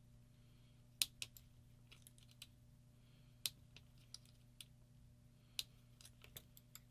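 A few small, scattered clicks as the paintball marker's trigger and grip frame are handled, the sharpest about a second in, over a faint steady low hum.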